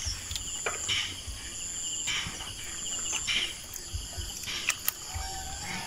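Insects chirping steadily in a rural background, a high pulsed trill, with a few short soft rustles and clicks from hands working at a fishing net.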